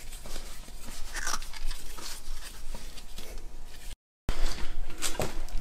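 Scattered small clicks, clinks and rustles of hand tools and parts being handled, with a brief break to silence about four seconds in.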